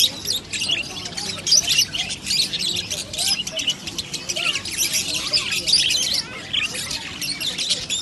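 A large flock of budgerigars chattering and chirping together, many short, high calls overlapping without a break.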